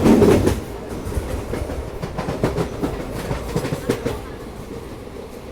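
Indian Railways passenger train running along the track, its wheels clicking over the rail joints in a series of sharp clicks over a steady rumble, loudest in the first half second.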